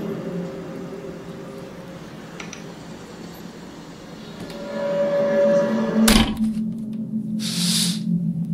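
A low, steady droning made of several held tones, one of the unexplained 'strange sounds' of the kind reported worldwide in 2012. It swells again after a few seconds, a single sharp loud bang cuts in about six seconds in, and a short high hiss follows near the end.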